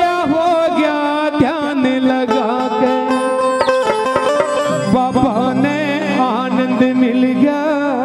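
Devotional bhajan music: a male singer holds a long wordless melodic line that bends and wavers in pitch, over sustained instrumental accompaniment with a few drum strokes.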